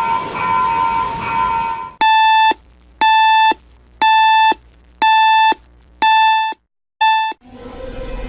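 A ringing tone stops about two seconds in. Then comes an electronic alarm beep, half-second beeps about once a second, six in all, the last cut short.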